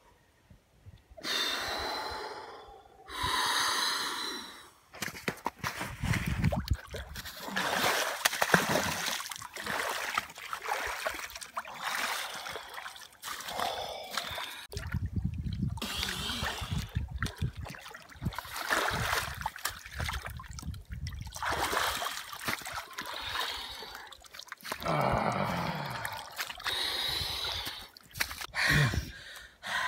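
Ice swimmers gasping and breathing hard in near-freezing water, with water splashing and sloshing in the hole cut in the lake ice. Their breaths come loud and uneven, starting about a second in.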